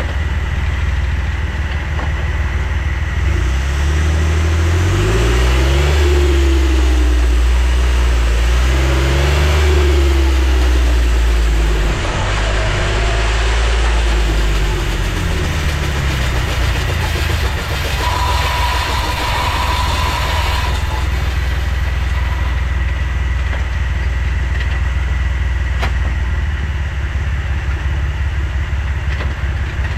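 Jeep Wrangler JK's V6 engine running, its pitch rising and falling twice in the first half, then steady. A steady beep lasts about three seconds a little past the middle.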